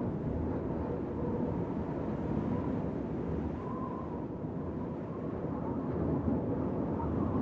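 Wind blowing steadily across the microphone, with a faint thin whistle that comes and goes.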